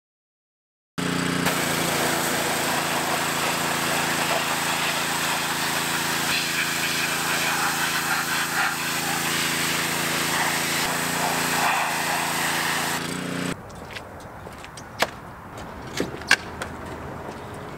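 Pressure washer running and spraying water onto an engine block: a steady hiss of spray over the pump's hum. It starts about a second in and cuts off suddenly near 13 seconds, followed by a few sharp clicks.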